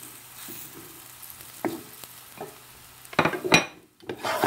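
Seitan meatballs sizzling in hot oil in a frying pan, with a wooden spoon knocking and scraping as it pushes them around. About three seconds in comes a louder burst of clatter and sizzle, which breaks off briefly and then resumes.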